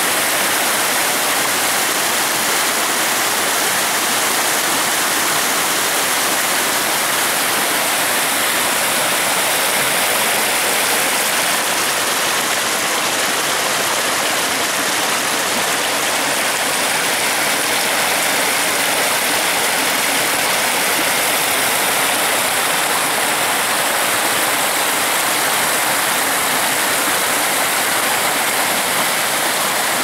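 Steady rush of river water pouring over a low rock ledge of a small waterfall and through the rapids below it.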